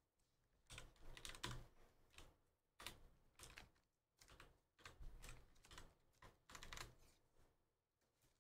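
Faint, irregular light clicks and taps over near silence.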